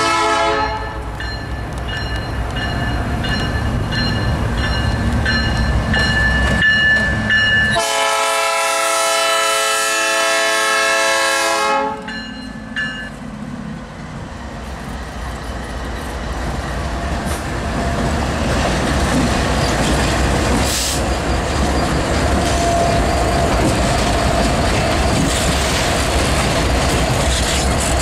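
Freight train and its diesel locomotives rolling past with a steady low rumble. About eight seconds in, a locomotive air horn sounds one long blast of about four seconds.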